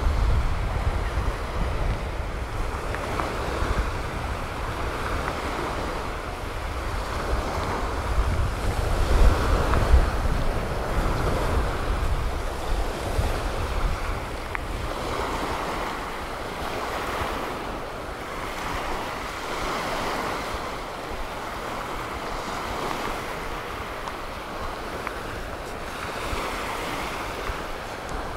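Surf washing onto a sandy beach in slow swells of hiss, with wind buffeting the microphone as a low rumble that is strongest in the first half and then eases.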